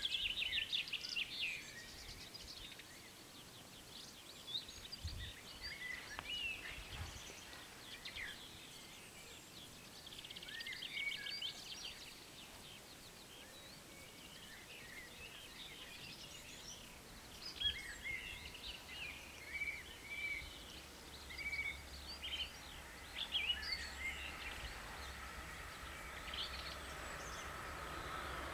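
Songbirds chirping and trilling with short repeated calls in quiet open country. In the last several seconds a low rumble and a steady whine slowly grow louder as an electric train approaches.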